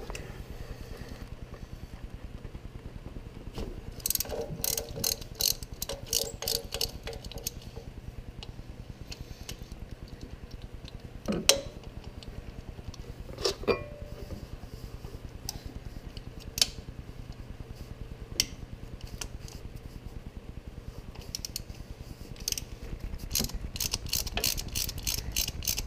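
Hand ratchet clicking in several bursts of rapid clicks as the exhaust manifold-to-head bolts on a Jeep Wrangler's 3.8 L engine are loosened and spun out, with a few single sharp metal clinks in between.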